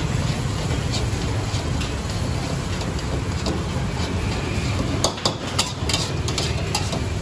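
A metal spatula stirring and scraping fried short noodles in a steel wok over a gas burner, with a steady low rumble underneath. From about five seconds in, the spatula strikes the wok in a run of sharp clanks.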